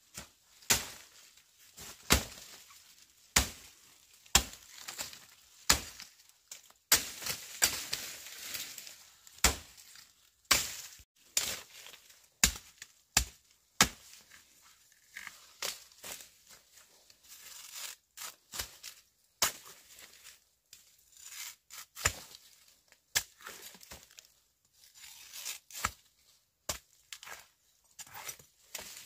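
Repeated chopping with a blade: sharp strikes about once a second at first, then quicker, lighter and more irregular in the second half.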